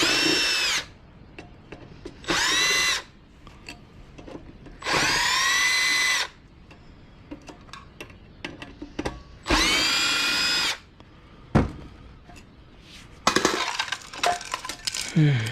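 Power drill run in four short bursts, each rising in pitch as the motor spins up and then holding steady. Between and after the bursts come clicks and clatter of small parts being handled, with one sharp knock.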